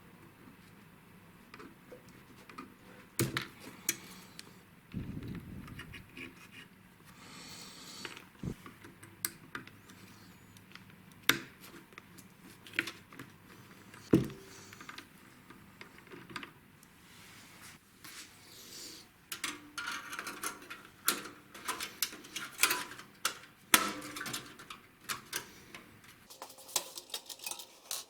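Irregular clicks, taps and light clatter of computer hardware being handled and fitted during a PC build, with a brief rustle about five seconds in and busier clatter in the last third.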